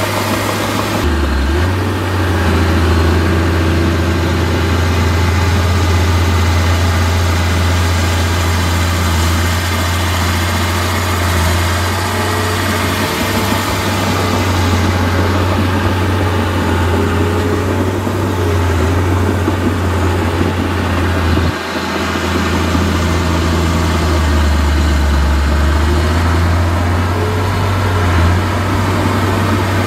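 Heavy diesel engine of earthmoving machinery running steadily with a deep drone, briefly dipping about two-thirds of the way through.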